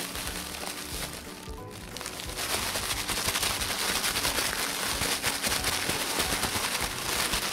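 A thin plastic food bag, puffed up with air, is shaken hard with chicken legs and dry frying powder inside. The plastic crinkles and the pieces rattle in a dense, rapid crackle that starts about two and a half seconds in, over background music.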